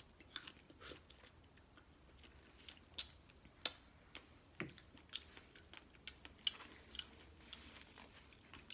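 Close-up chewing of fresh strawberries dipped in vanilla yogurt: wet smacking of the lips and mouth, with irregular sharp clicks a few times a second.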